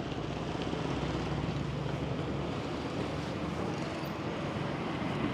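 KTM 390 Adventure's single-cylinder engine running steadily through its stock exhaust, at a constant pitch, under a broad rushing noise.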